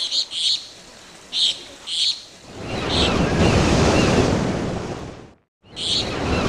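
Surf: a wave washes in, swelling and fading over a few seconds, with small birds chirping in short bursts before it. The sound cuts out abruptly about five seconds in, then birds and surf start again.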